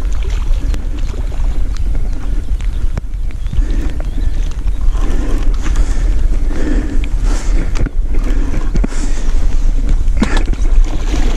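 Wind buffeting a GoPro's microphone: a steady low rumble with rustling over it, and a sharp knock about ten seconds in.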